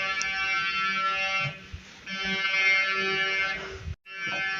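Buzzy electronic emergency-alert (EAS) alarm tone, sounding in repeated blasts of about a second and a half with short gaps between them. The sound cuts out for an instant near the end.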